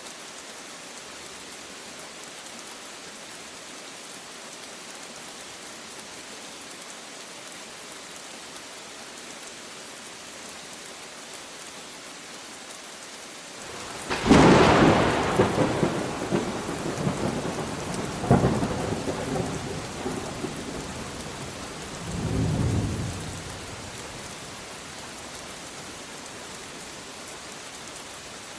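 Steady rain falling, with a loud thunderclap about halfway through that cracks suddenly and rolls on in rumbles, with a second crack and a lower rumble before it fades back to the rain.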